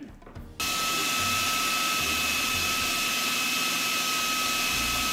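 Kenwood Multi Pro food processor motor switching on about half a second in and running steadily at full speed with a high whine, grinding almond meal and icing sugar together.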